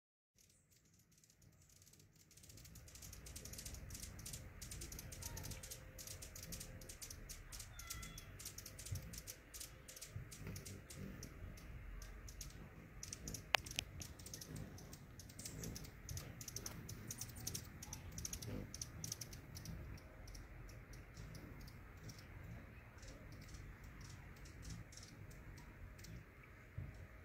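Outdoor garden ambience: rapid, irregular high clicks and ticks over a low rumble, with a few short faint chirps about eight seconds in and one sharper click a little later.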